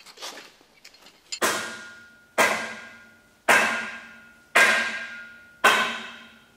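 Five loud percussive hits about a second apart, each with a sharp attack and a ringing tail that dies away before the next, like dramatic drum hits in a film score. Faint clicks come before the first hit.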